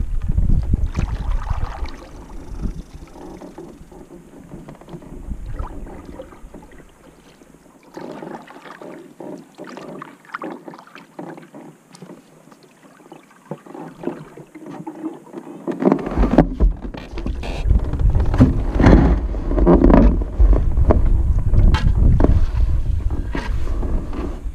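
Canoe being paddled: paddle strokes splashing and knocking in the water, with wind rumbling on the microphone that grows louder in the last third.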